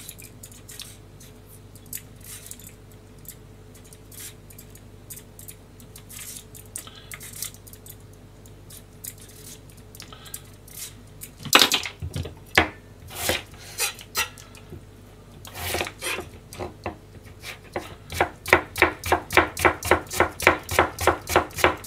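Kitchen knife working a vegetable: a few faint cuts at first, then a handful of single knocks, then fast, even chopping on a plastic cutting board, about five strokes a second, over the last four seconds.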